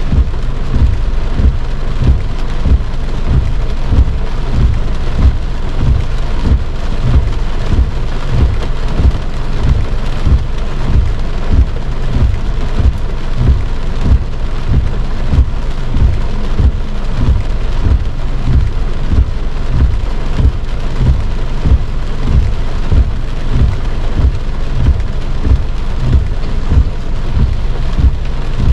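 Heavy rain drumming on a car's roof and windshield, heard from inside the cabin: a dense, steady patter with frequent low thuds from heavier drops.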